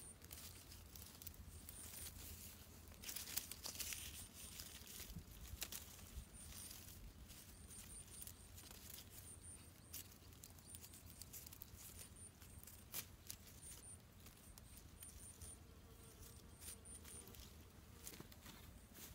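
Faint rustling of leafy branches and crackling of twigs as they are woven through a stick-frame shelter, loudest about three to four seconds in. Faint, very high chirps in twos and threes come and go behind it.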